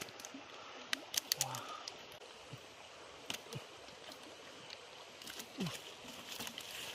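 Woven bamboo fish trap being handled as its funnel cone is fitted into the basket: scattered sharp clicks and light clatter of bamboo slats, the densest cluster about a second in, over a steady background hiss.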